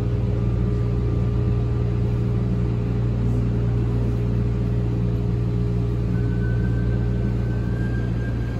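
Cabin sound of a Toronto Rocket subway car pulling into a station and slowing: a steady low rumble with a humming motor tone. A faint higher whine joins about six seconds in.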